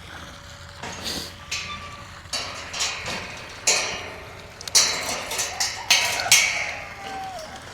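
A string of short, irregular rustling and scraping noises, like things being handled and moved about, with a faint squeak near the end.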